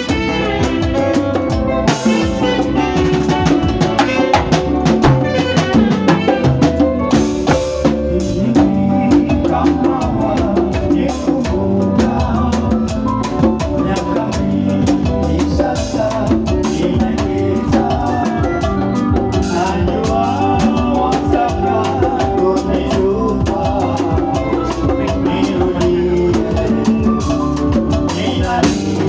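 Kenyan bango band playing live and amplified: a steady drum beat under electric guitar and saxophone lines, with a singer on microphone.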